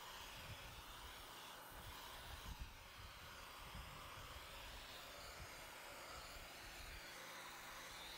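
Faint, steady hiss of a Portland electric pressure washer's water jet spraying.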